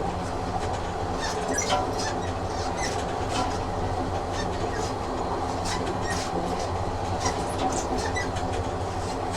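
Train running along the rails, a steady low rumble with frequent irregular clicks of the wheels over the track.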